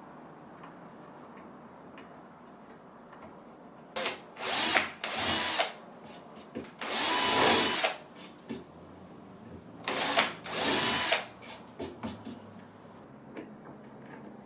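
Power drill running in six short bursts of about half a second to a second each, grouped in three pairs with pauses between.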